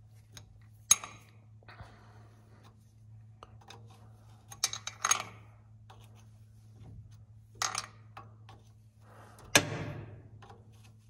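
Scattered sharp metallic clinks and taps of small fittings and hand tools being worked onto the diesel injectors of an Allis-Chalmers 7045 tractor, about five clear clinks with the loudest about a second in and near the end.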